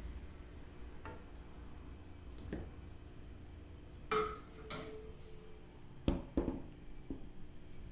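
Metal kitchen utensil knocking and clinking against a cooking pan and dish, several separate knocks; the loudest, about four seconds in, rings briefly.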